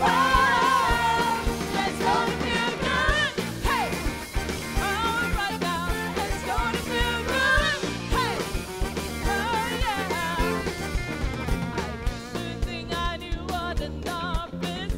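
A song with a singing voice over an instrumental backing with a steady beat; near the end the voice drops away and the drums and backing carry on.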